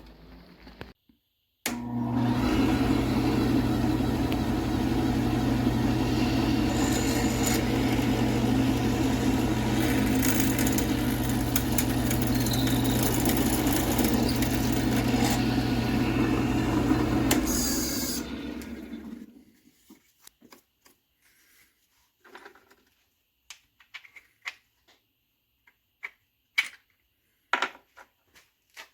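A power tool's electric motor runs steadily with a low hum for about sixteen seconds, then winds down and stops. Light knocks and clicks of handling follow.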